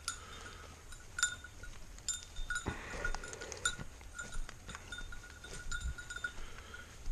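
A small bell on a working springer spaniel jingling steadily as the dog hunts through the brush, with a brief rustling flurry about three seconds in.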